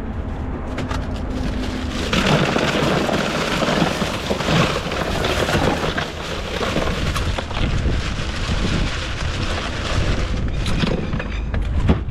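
A bag of ice being tipped into a polystyrene esky: a dense, crackling rattle of ice cubes tumbling over cans and packets, starting about two seconds in, over a steady low rumble. The lid knocks shut near the end.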